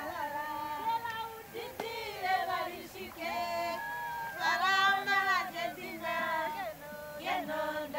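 High voices singing a melody without instruments, with long held notes and slides between them.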